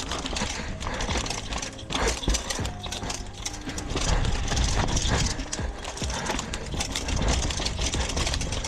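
Downhill mountain bike clattering and rattling over rough trail ground: many small knocks over a steady rush of noise.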